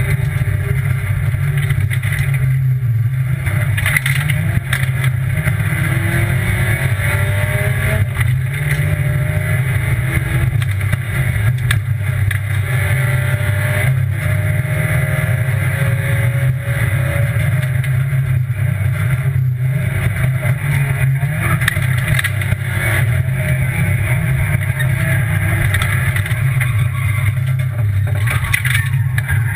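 Rally car's engine heard from inside the cabin at full stage pace, its pitch climbing as it revs out and dropping back at each gear change.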